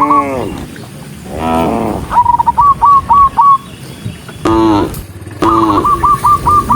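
Cows mooing several times, calls coming one after another. Between and over the moos come two quick runs of short high chirping notes, about five a second.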